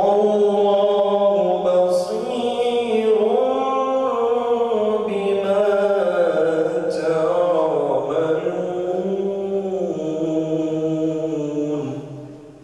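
A man reciting the Quran in melodic, chanted tajwid style: one long sustained phrase whose pitch rises and falls in ornamented glides. It starts suddenly and fades out near the end.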